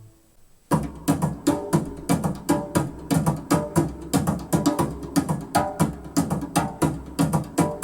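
Music playing back through a TSM Puris 100 loudspeaker: a sustained chord dies away, and after a brief gap of under a second a new instrumental track starts with a quick, steady percussive beat of about four strokes a second and plucked guitar.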